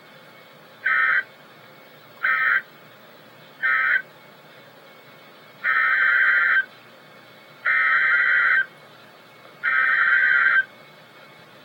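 Emergency Alert System SAME data bursts, buzzy digital tones: three short bursts, the end-of-message code closing a severe thunderstorm warning, then three longer bursts of about a second each, the header that opens the next alert.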